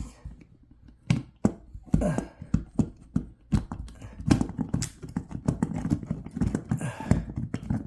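Hard fan parts being handled and worked loose by hand, making a fast, irregular run of knocks, clicks and rattles.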